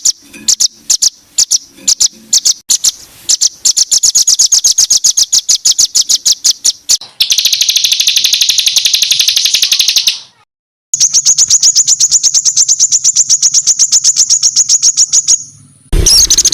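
Songbird singing harsh, rapid-fire 'tembakan' phrases: sharp high notes repeated about ten a second. They start sparse, then run in fast trains that break off abruptly, with a brief silence about two-thirds of the way through.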